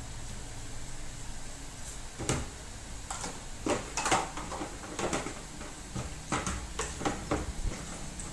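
Plastic feeding-bottle parts being washed by hand in a basin: a run of irregular short knocks, clicks and scrapes as the pieces are handled and scrubbed, starting about two seconds in.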